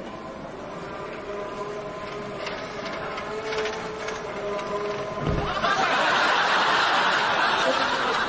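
Small electric platform tug whining steadily as it tows a trolley of mail sacks. About five seconds in there is a dull thud as a sack drops onto the platform, then a loud wash of studio-audience laughter.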